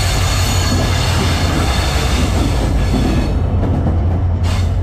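EMD GT42 diesel-electric locomotive running past at close range with a loud steady low rumble and hiss, then its passenger coaches rolling by. The hiss drops away about three seconds in, and a short clatter comes near the end.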